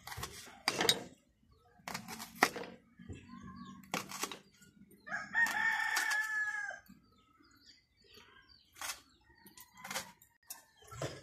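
Knife chopping tomatoes on a wooden cutting board, with irregular sharp knocks. A rooster crows once about five seconds in, a drawn-out call lasting about a second and a half.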